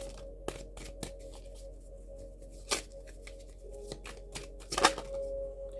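Tarot cards being shuffled and handled: a run of soft flicks and taps, with a sharper snap about three seconds in and a louder one near the end.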